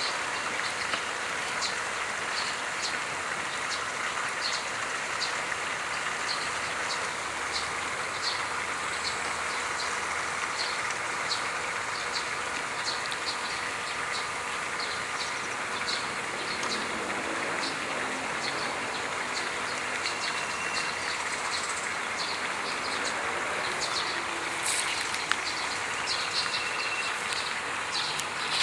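Steady outdoor riverside ambience: an even rushing hiss with a small high chirp repeating about twice a second, and a few sharper clicks near the end.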